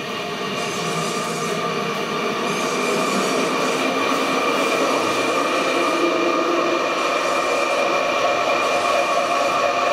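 Electric hoist motor running steadily, hauling a cheesecloth full of curd up out of a copper cheese kettle. Its hum carries several steady tones and grows a little louder over the first few seconds.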